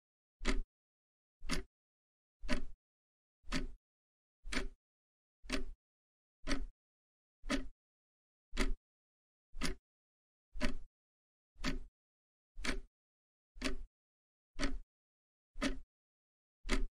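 Countdown timer sound effect: a short tick about once a second, each followed by silence, in step with the on-screen clock counting down.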